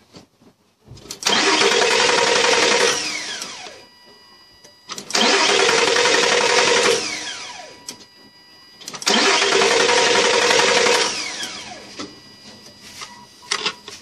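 2005 Nissan Frontier engine started three times with the fuel pump fuse pulled, each run lasting about two seconds before it dies away with a falling pitch, as the fuel pressure is bled off.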